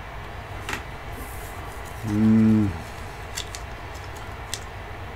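A man's short, low hummed 'hmm' about two seconds in, the loudest sound here, with a few light clicks from a trading card being handled in the fingers.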